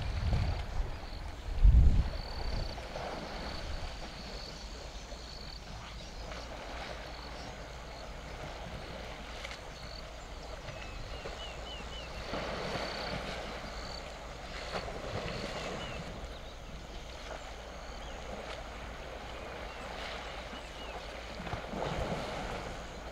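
African elephants splashing and sloshing in water as they wrestle and roll, with swells of splashing and a big splash near the end. A loud low thump about two seconds in.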